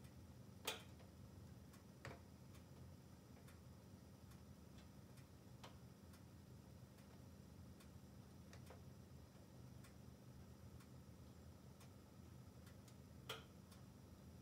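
Wood burning behind the closed door of a log-burning stove, crackling faintly: a few sharp, irregular pops, the loudest about a second in and another near the end, over scattered faint ticks.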